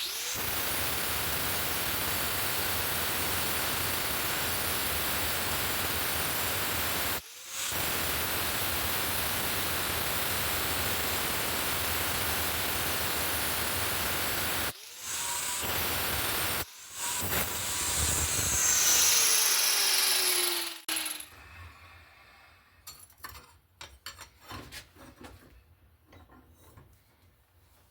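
Angle grinder with a cutoff wheel cutting through steel knife stock: a steady, loud grinding hiss that breaks off briefly three times. About 20 seconds in the tool is released and its pitch falls as the wheel spins down, leaving faint handling clicks.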